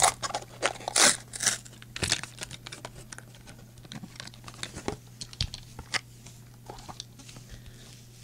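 Plastic blister packaging of a die-cast toy car crinkling, cracking and tearing as it is pulled open by hand; a quick run of crackles in the first two seconds, then sparser clicks and rustles.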